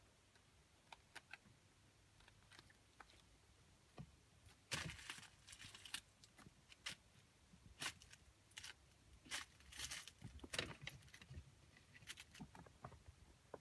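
Faint, scattered rustling, scratching and light taps of ragdoll kittens pouncing on a feather wand toy and scrabbling across a woven rug, busiest about five seconds in and again around ten seconds.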